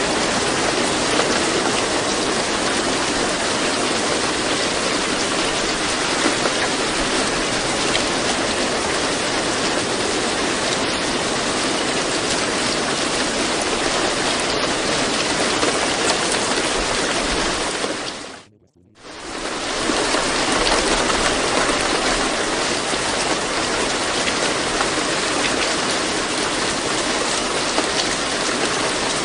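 A steady recording of rain, an even hiss of falling water. About two-thirds of the way through it fades to near silence for under a second and then fades back in, as at the join of a looped track.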